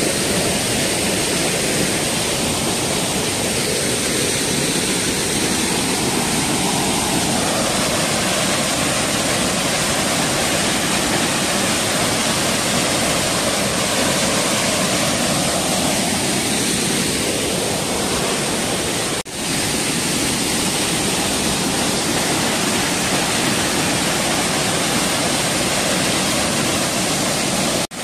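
Small waterfall and rocky stream rushing steadily, the water falling with fair force. The sound drops out for an instant about two-thirds of the way through.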